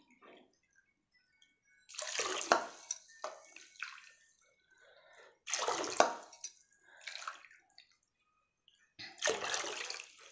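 Water poured from a cup into a steel pot of sugar, splashing onto the sugar, in three pours of about two seconds each with short pauses between: cupfuls of water being measured in for sugar syrup.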